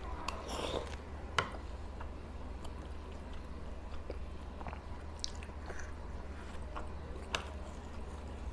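Close-miked wet chewing and mouth sounds of a person eating soft, milk-soaked rasabali. Two sharp clicks stand out, one about a second and a half in and one near the end.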